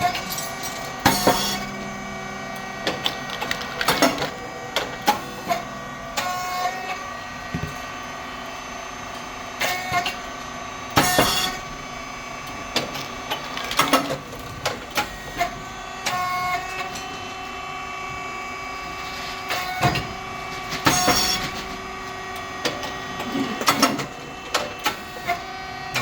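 SYP4506 rice cake popping machine running its production cycle: a steady pump hum under clicks and clanks from the moulds and feeding plate. A loud short burst comes about every ten seconds, three times in all, as the heated moulds open and the rice chips puff.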